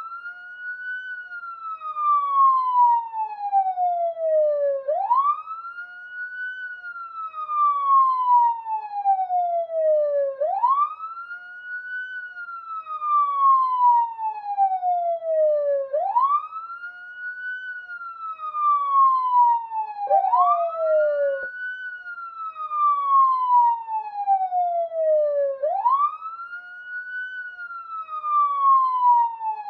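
Police siren wailing: each cycle rises quickly in pitch, then falls slowly over about five seconds, repeating steadily. One cycle is cut short about two-thirds of the way through with a click where the next rise starts early.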